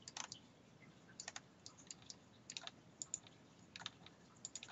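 Faint computer keyboard keystrokes, coming irregularly in small clusters of two or three quick taps.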